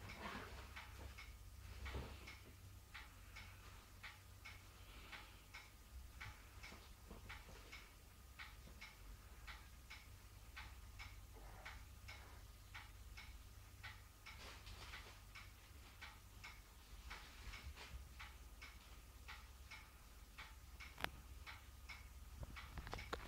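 Clock ticking steadily, about two ticks a second, with one sharper click near the end.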